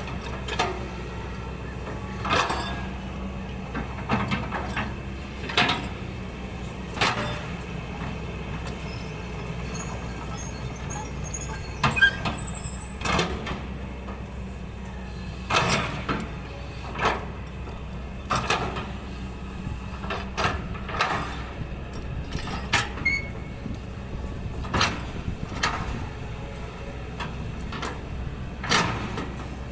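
Kobelco SK200 excavator's diesel engine running steadily under load, with short scraping, hissing noises every second or two as the machine works soil on a slope.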